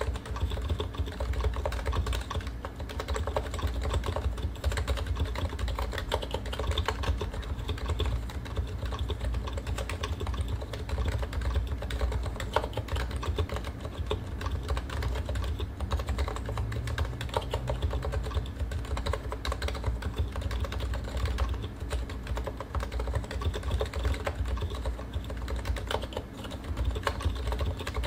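Continuous fast typing on a stock Realforce R2 PFU Limited Topre keyboard, with uniform 45g Topre rubber domes, silent sliders and PBT keycaps: a dense, unbroken run of keystrokes.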